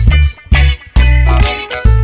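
Background music with a steady, bass-heavy beat.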